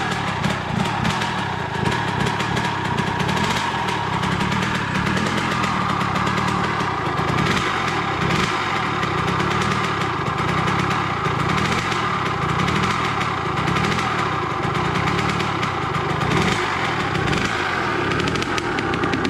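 Kawasaki KX100's two-stroke single-cylinder engine running on its first startup after a rebuild, its speed rising and falling unevenly.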